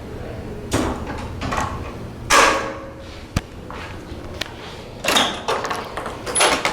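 A door with a Sargent door closer and Sargent mortise lock being opened and swung shut. There are several short swishing movements and one sharp latch click about three and a half seconds in.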